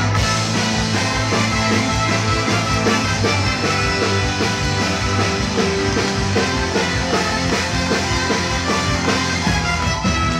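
Live rock band playing an instrumental passage with no vocals: trombone and trumpet over electric guitar, keyboard and drum kit, with a steady beat.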